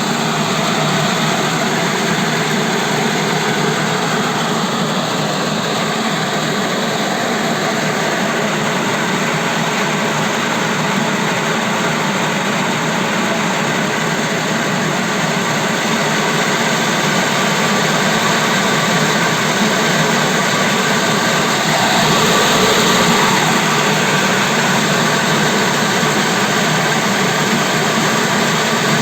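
Homemade walnut-hulling machine built from a washing machine, running: a steady, dense mechanical noise that swells slightly about two-thirds of the way through.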